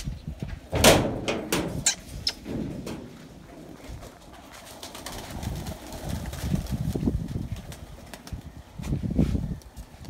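A flock of young high-flyer pigeons cooing in their loft, with a few sharp clattering sounds, the loudest about a second in.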